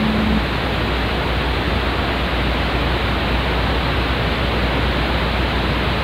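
Loud, steady static hiss of a dead TV signal, with a low hum beneath it. A low steady tone stops just after the start.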